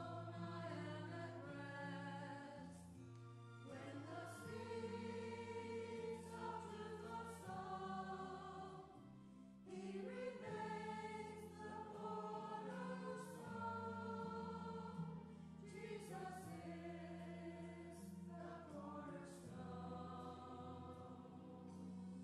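Church choir of mixed men's and women's voices singing, over steady held low notes; the sound drops off briefly just before ten seconds in, then the singing picks up again.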